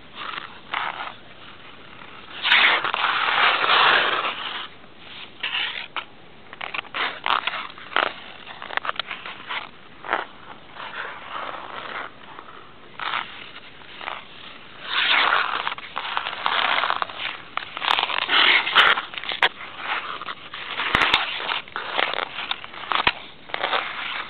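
Ice skate blades scraping across outdoor ice in irregular strokes, with longer scrapes and a few short sharp clicks between them.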